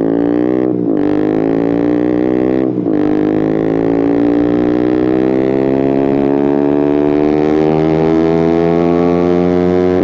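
KTM Duke 125 single-cylinder four-stroke engine through an Akrapovic exhaust with a GPR decat link pipe, accelerating hard through the gears. Two quick upshifts, about one and three seconds in, each cut the sound briefly and drop the pitch. After that comes a long, steadily rising pull in the higher gear.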